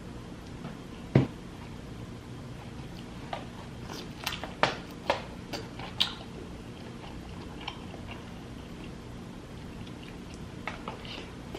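Close-up eating sounds: scattered wet smacks and sharp clicks of someone biting and chewing seafood, with a dull thump about a second in.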